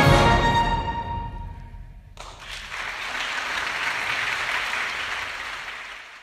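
The band's closing chord rings out and dies away in the hall's reverberation. About two seconds in, the audience starts applauding, and the applause fades out near the end.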